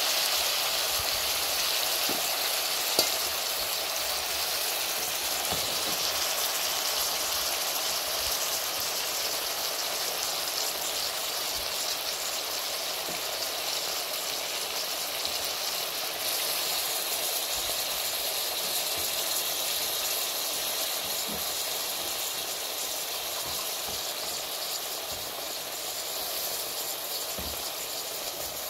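Smoked beef and freshly added pumpkin leaves sizzling in an aluminium saucepan: a steady frying hiss that eases slightly toward the end, with one sharp click about three seconds in.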